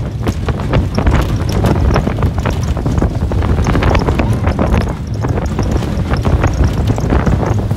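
Slinky Dog Dash roller coaster train running along its steel track, wheels rattling and clacking continuously over a low rumble, with wind buffeting the microphone.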